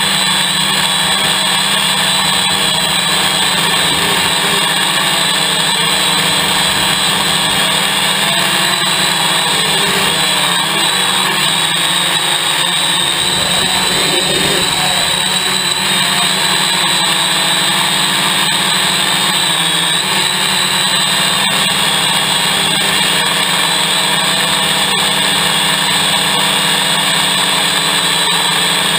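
Hexacopter's six electric motors and propellers whining steadily, a stack of tones that waver slightly in pitch, heard up close through the craft's own onboard camera.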